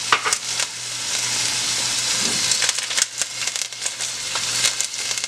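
Ribeye steaks searing in a hot stainless-steel pan over high heat: a steady sizzle with scattered crackles and pops.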